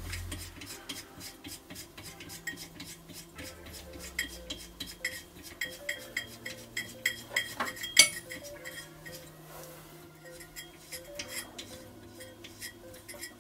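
Light metallic clicks and clinks, a few a second with one sharper click about eight seconds in, as a decompression valve is screwed by hand into the cylinder head of a Yamaha IT490/YZ490 two-stroke engine. Quiet background music plays underneath.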